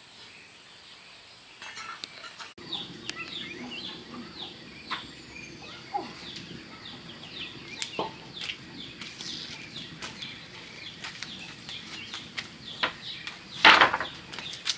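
Chickens cheeping: many short, high, falling peeps in quick succession, with a loud rustling burst near the end.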